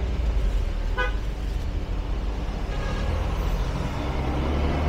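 Street traffic with a steady low rumble and a short, sharp vehicle horn beep about a second in.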